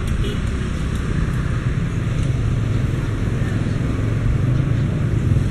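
Steady low rumble of a container freight train's last flat wagons rolling along the track past the crossing.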